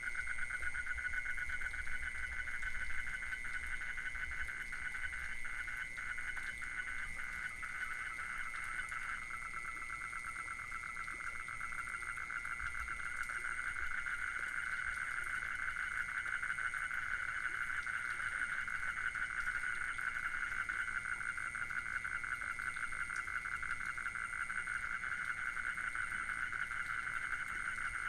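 Chorus of frogs calling: a continuous, rapidly pulsing trill at two overlapping pitches.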